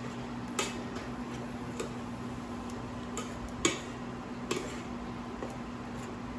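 A spatula knocking and scraping against a frying pan as fried rice is stirred, giving a few irregular sharp clicks over a steady low hum.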